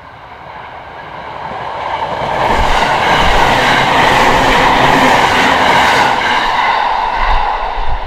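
Electric commuter train on the JR Kawagoe Line running through a level crossing. The rush of wheels on rail builds over the first couple of seconds, stays loud, then begins to fade near the end, with low thuds as the wheels pass over rail joints.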